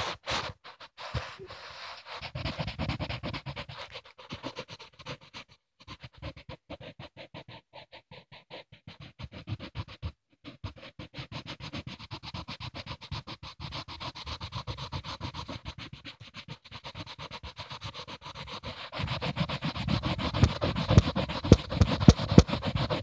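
Rapid scratching strokes of colouring on a colouring-book page, close to the microphone. Heavier rubbing and bumps join in over the last few seconds.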